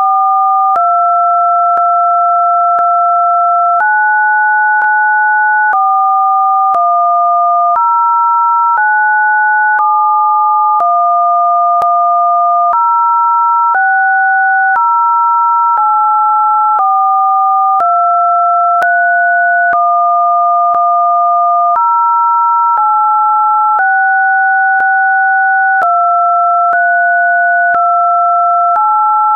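Two synthesized sine tones sounding together, each held steady and then jumping to a new pitch about every second or two, with a faint click at each jump, like a test signal.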